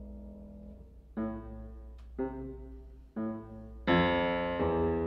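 Grand piano playing a slow introduction: a held chord dies away, then three chords are struck about a second apart, and a louder, fuller chord sounds near the end.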